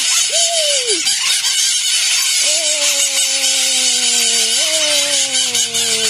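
A large flock of maritaca parakeets screeching and chattering continuously at close range. Under it a low droning tone slides slowly down from about halfway, jumps up once and slides down again.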